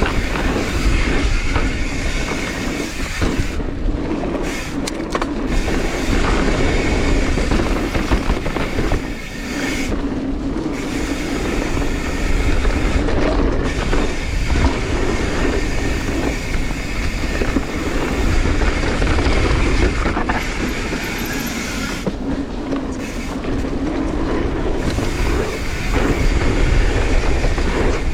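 A mountain bike ridden fast down a dirt jump trail: wind rushing over the camera microphone, with the tyres rolling on dirt and the bike rattling over the bumps. The sound is loud and continuous, with brief lulls every few seconds.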